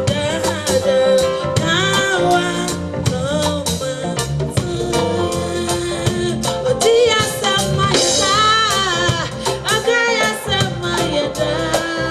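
Live band music with a lead voice singing a wavering melody over a steady, regular drum beat.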